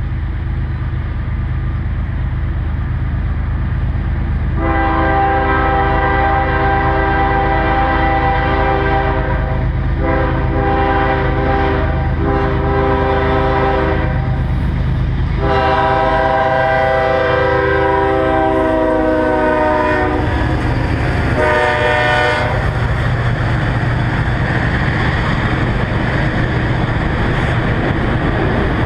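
CSX freight locomotive's multi-note air horn sounding a series of blasts: a long one about five seconds in, two shorter ones, another long one whose pitch drops as the locomotive goes by, then a brief toot, over the steady low running of the diesel engines. After that comes the rumble and clatter of the freight cars rolling past.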